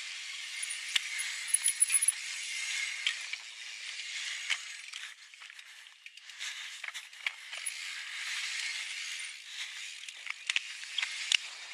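Mountain bike riding down a dirt singletrack: a steady hiss of tyres on the loose trail with frequent clicks and rattles from the chain and frame over bumps. The hiss drops away briefly about five seconds in, then picks up again.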